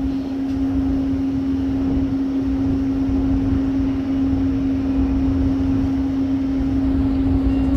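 Steady hum of ship machinery at one unchanging pitch over a low rumble.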